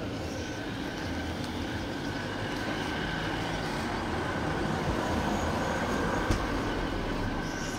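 Street traffic noise: a motor vehicle passes along the road, its engine growing louder toward the middle and easing off near the end, with one brief knock just after the loudest point.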